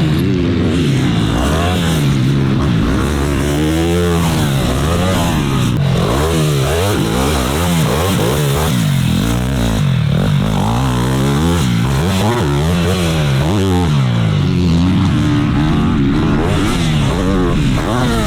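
Dirt bike engines revving up and falling off again and again, the pitch climbing and dropping as the bikes accelerate and shift on a motocross track.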